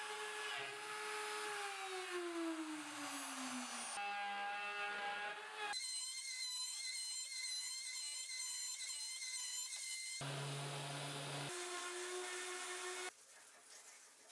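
Homemade CNC router milling grooves in a wooden piece: the router motor whines with a steady stack of tones that changes abruptly several times, and in one stretch early on its pitch drops steadily for a couple of seconds. Near the end the machine sound cuts off, leaving only a faint low sound.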